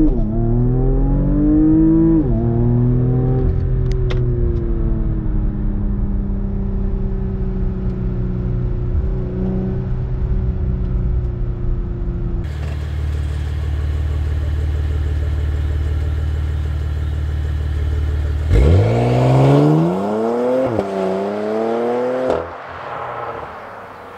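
Porsche Macan Turbo's twin-turbo 3.6-litre V6 accelerating hard from inside the cabin, its pitch rising and dropping back at each PDK upshift, then easing off. About halfway through, a steady low rumble. From about 19 seconds in, the engine revs up hard again through two quick upshifts and fades into the distance.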